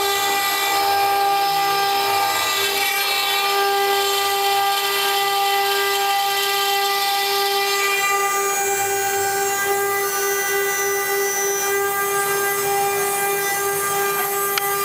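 Double-head CNC stone router with both spindles cutting 20 mm stone, making a steady whine with several overtones over a hiss.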